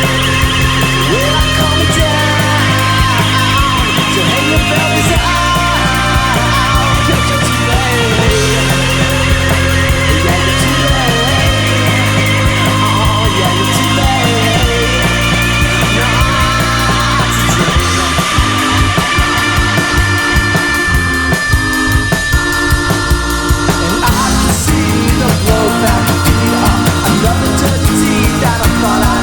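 Loud psychedelic rock instrumental: distorted guitars over sustained bass notes that change every couple of seconds, with wavering lead lines, turning busier and more rhythmic about two-thirds of the way through.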